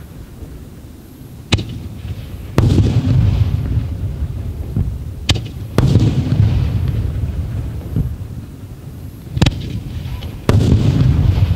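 Aerial firework shells of a starmine display going off three times, each a sharp crack followed about a second later by a deep, rolling boom.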